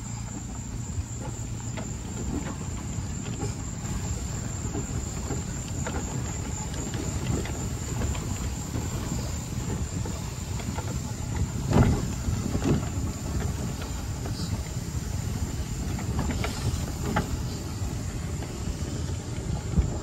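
Utility golf cart driving along a paved path: a steady low rumble from the tyres and body, with scattered rattles and knocks and a louder thump about twelve seconds in.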